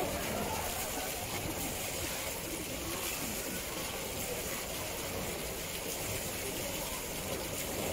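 Steady rush of running water, with faint murmuring voices in the background.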